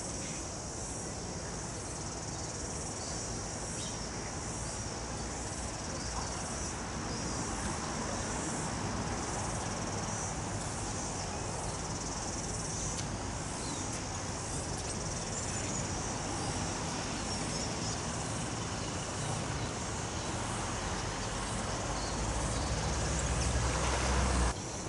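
Steady chorus of insects, a high pulsing trill that never stops, over a low rumble that grows louder near the end and then cuts off suddenly.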